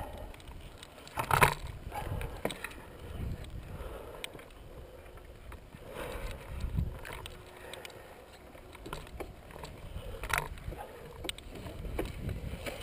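Scuffing and knocking as a dirt bike lying on its side in loose sand is handled and pulled at, with wind rumbling on the microphone. A sharp knock about a second and a half in is the loudest sound, with another near ten seconds.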